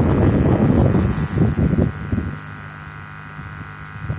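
Wind buffeting the microphone, a low rumbling that is strongest for the first two seconds and then eases, leaving a faint low steady hum.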